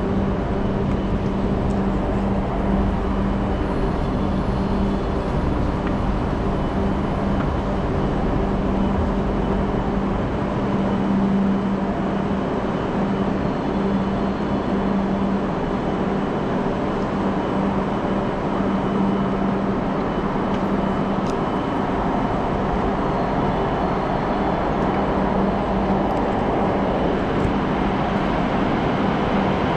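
Railway station ambience on an escalator and then a Shinkansen platform: a steady low hum under a wash of background noise, a little fuller near the end.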